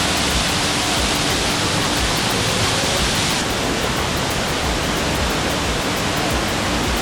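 Steady loud rush of water from a waterfall or cascade, an even wash of noise with no breaks.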